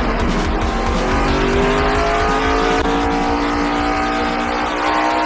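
NASCAR stock-car V8 engine running at high revs, its pitch climbing steadily through the second half as the car accelerates.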